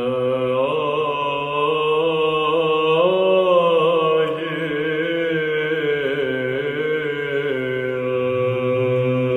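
Byzantine chant by a choir of men's voices: a low steady drone note (the ison) is held underneath while the melody is sung above it on a long drawn-out vowel, with bending, ornamented turns.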